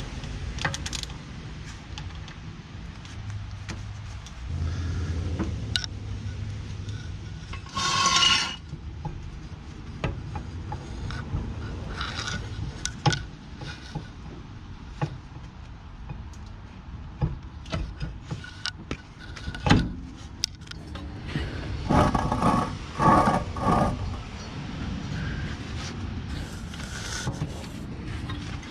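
Metal tools and car parts clinking, knocking and scraping during hands-on work on a car's rear wheel hub, with several short, louder bursts of noise: one about a third of the way in and a cluster near the end.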